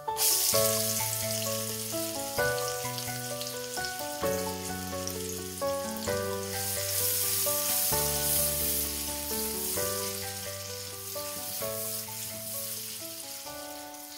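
Chopped onion dropped into hot oil in a wok: a sudden loud sizzle that slowly dies down as a spatula stirs it. Soft background music with sustained notes plays throughout.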